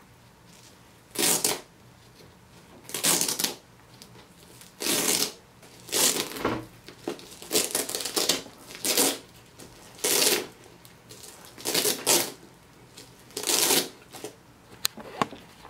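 Hook-and-loop (Velcro) straps on a cycling handlebar bag being ripped open again and again, about ten rasping tears a second or two apart.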